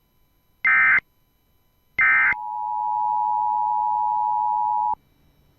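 Emergency Alert System data bursts: two short screeching digital bursts about a second apart, with the brevity of the end-of-message code. Then the steady two-tone EAS attention signal (853 and 960 Hz) sounds for about two and a half seconds and cuts off abruptly.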